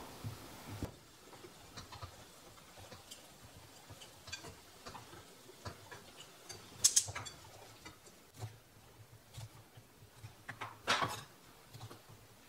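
Faint, scattered taps and clicks of kitchen work: a knife slicing gumdrops on a wooden cutting board and a spatula stirring marshmallows in a glass bowl. Two sharper clicks come about seven and eleven seconds in.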